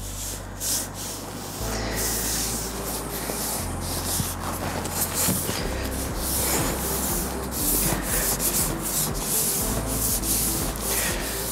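Fondant on a cake being rubbed and smoothed back and forth, a run of repeated dry rubbing strokes.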